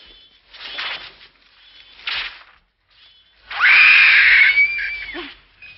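A young girl screaming: one high-pitched scream starting about three and a half seconds in, held for about a second and a half, then cut off.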